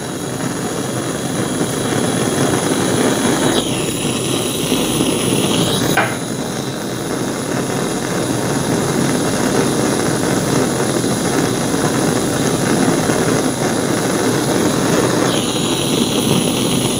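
Hand-held LPG (propane) torch flame burning with a steady rushing noise as it heats a small steel disc.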